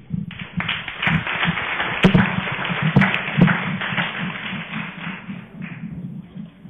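Audience applauding: a dense patter of many hands clapping that starts just after the talk ends and dies away over the last couple of seconds.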